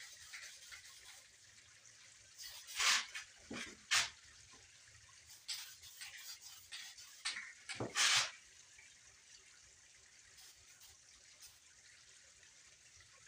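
Aerosol spray-paint can hissing in a few short bursts over the first eight seconds or so, then only faint hiss.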